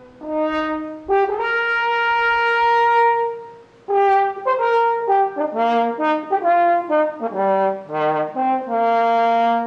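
French horn playing a solo melody: a short note, then a long held note, a brief break about four seconds in, then a run of quick notes ending on a held note.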